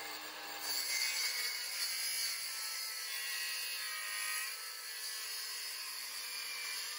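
Cordless circular saw running and cutting across a timber board: a steady motor and blade whine that grows louder as the blade bites into the wood about half a second in, and keeps going through the cut.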